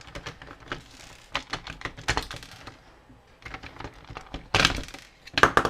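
Hard plastic action-figure parts being handled and fitted together: a run of light clicks and taps, with a louder clatter near the end.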